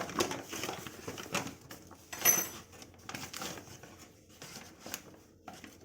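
Flour being scooped with a drinking glass and tipped into a mixing bowl: a run of soft scrapes, taps and rustling, with one sharp clink of the glass against the bowl about two seconds in.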